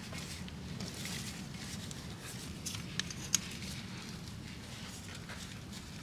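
Faint scattered clicks and rustles of an oil filter being tightened with a ratchet filter wrench and a gloved hand, with two sharper clicks about three seconds in, over a low steady background hum.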